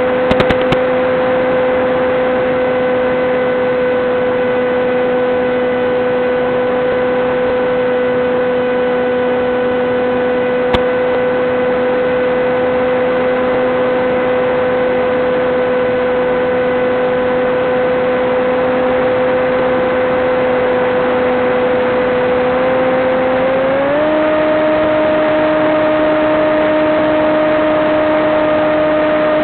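Electric motor and propeller of an FPV flying wing, heard through the analog video link's audio: a steady whine under a hiss that steps up in pitch near the end as the throttle is raised.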